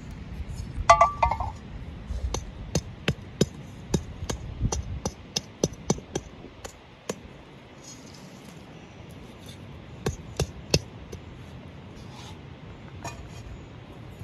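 A metal utensil clinking against frying pans over a fire: one ringing clank about a second in, then a quick run of light taps and clinks, and a few more later on.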